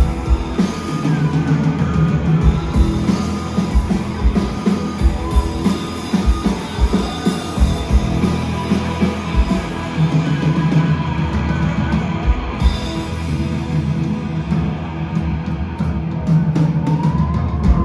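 Live rock band playing an instrumental passage with no singing: heavy, sustained low bass-guitar notes over steady pounding drums. The cymbals drop out about two-thirds of the way through while the drums keep going.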